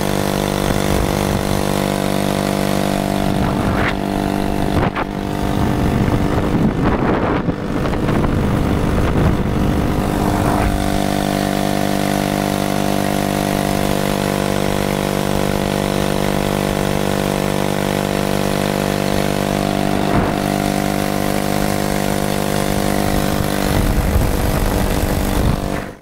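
Honda 50cc four-stroke engine on a motorized bicycle running steadily while under way. The sound turns rougher and uneven between about four and eleven seconds in, then settles back to a steady drone.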